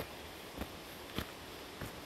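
A hiker's footsteps on a trail, four even steps a little under two a second, over a steady background hiss.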